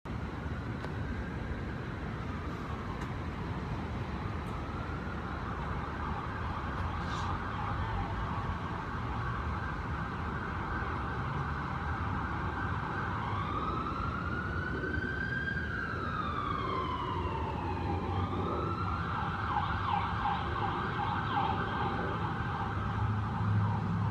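Emergency vehicle siren wailing, its pitch rising and falling slowly, then switching to a rapid yelp near the end, over a low traffic rumble.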